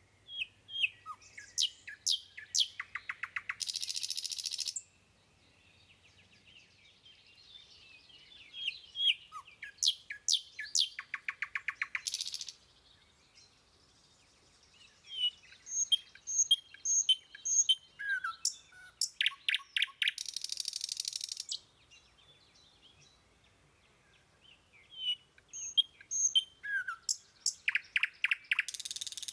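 Songbird singing in four similar bouts of high chirps, each with a fast trill and a harsh buzzy note, with short pauses between the bouts.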